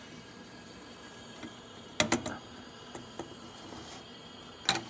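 Sharp clicks or knocks, a quick pair about two seconds in and one more near the end, over a steady faint hiss.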